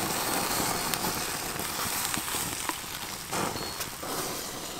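Open wood fire crackling with scattered small pops, and a whole catfish sizzling as it grills on a rack of sticks over the flames.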